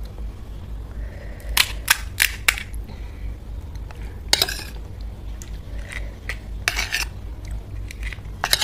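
Eating sounds of pani puri with dishes and cutlery: a quick run of four sharp clicks about a second and a half in, a longer crackling burst around the middle and another later, and one more click near the end.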